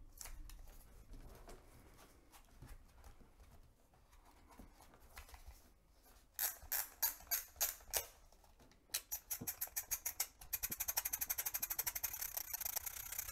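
Plastic body of a Kodak FunSaver disposable camera being handled quietly, then rapid ratcheting clicks from its film-advance thumbwheel being wound. The clicks come in short uneven runs from about six seconds in, then as a fast, steady clicking near the end.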